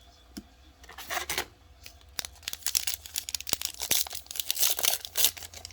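Foil trading-card pack wrapper being torn open and crinkled by hand: a short crackle about a second in, then a longer stretch of dense crackling and sharp clicks.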